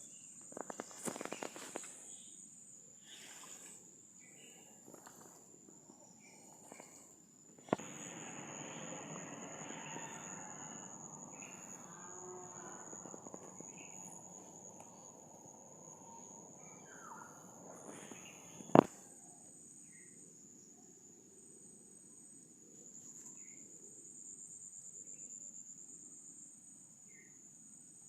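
Insects chirring steadily at a high pitch, with a rustling noise in the middle and two sharp clicks, the louder one a little past two-thirds of the way through.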